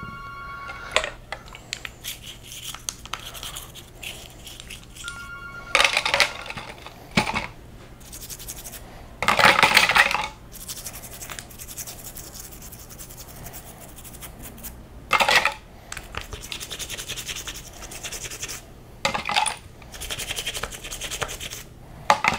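Old toothbrush scrubbing dirty metal differential gears wet with solvent: bristles scratching in short, irregular bursts, with metal parts knocking against a glass jar.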